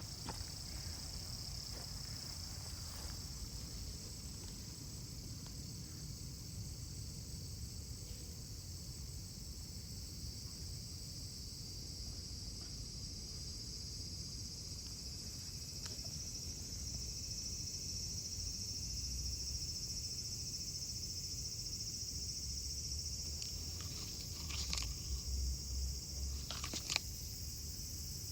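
Insects shrilling in a steady, high-pitched chorus over a low rumble, with a few short clicks or rustles near the end.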